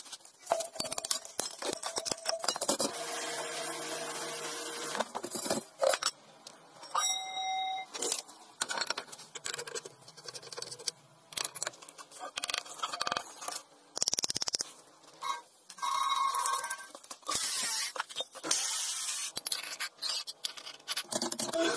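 Workshop metalworking on an old steel tank: a choppy run of scrapes, clinks and short stretches of tool noise, with a brief ringing tone about seven seconds in.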